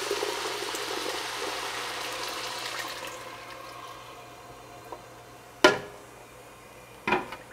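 Blended chicken stock and tomatoes pouring from a blender pitcher into a hot pot of browned rice, a steady splashing pour that fades out after about three seconds. Two sharp knocks follow near the end.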